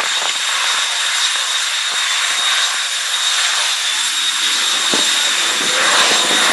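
Jet drag cars' jet engines running at the starting line: a steady loud jet rush with a high whine held on one pitch, swelling slightly near the end.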